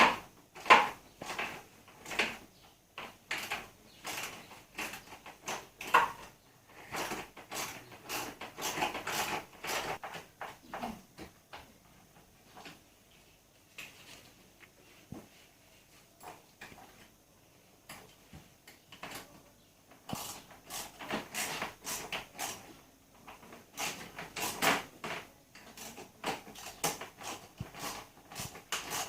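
Irregular clicks, knocks and rattles of parts and hand tools being worked while fitting parts onto a mini bike, with a busier stretch about a quarter of the way in and a quieter gap near the middle.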